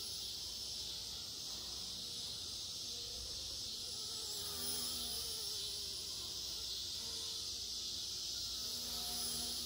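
Blade mCP X BL2 micro RC helicopter flying at a distance, its rotor and motor whine wavering up and down in pitch. Behind it runs a steady high buzz of insects.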